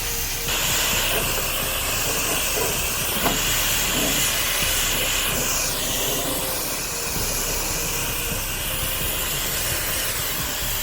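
Liquid hissing steadily from a spray nozzle, starting about half a second in.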